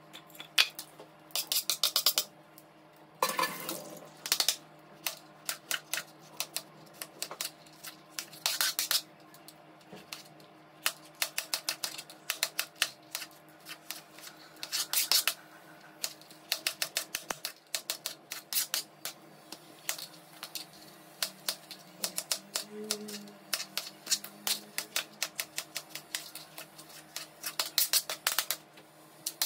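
Kitchen knife chopping onions and tomatoes on a plastic cutting board: irregular runs of quick sharp taps, with a few longer scraping strokes between them.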